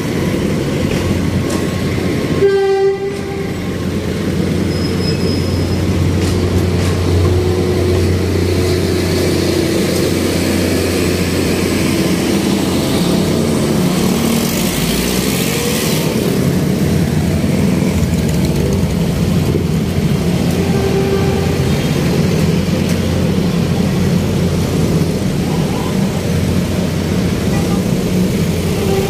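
Steady low engine drone with a deep hum and a few held tones drifting slightly in pitch, cut briefly by a dropout about three seconds in.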